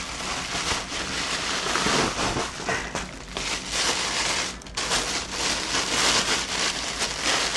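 Bubble wrap and a thin plastic bag crinkling and rustling as they are pulled open and off by hand. The crinkling is uneven, with short pauses about three and four and a half seconds in.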